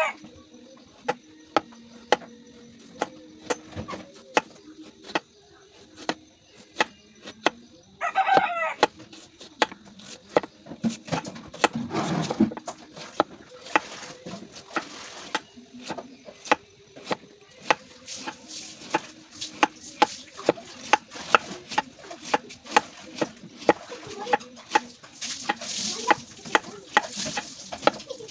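Knife slicing bamboo shoots on a cutting board: a long run of sharp knocks that gets quicker in the second half, to about three a second. A chicken gives one short call about eight seconds in.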